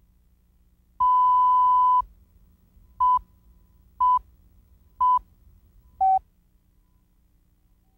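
Countdown leader tones on a broadcast tape: a steady electronic test tone held for about a second, then four short beeps a second apart, one for each number of the count, the last one lower in pitch.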